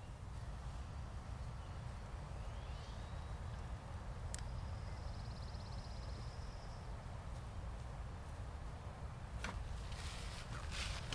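Steady low outdoor rumble, with a high buzzy trill lasting about two seconds around the middle. Near the end comes a burst of crackling rustles as dry evergreen branches from an old Christmas tree are laid down as mulch around tomato plants.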